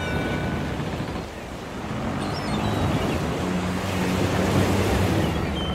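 A rushing wash of noise like ocean surf that dips briefly and swells again, with a few faint high chirps.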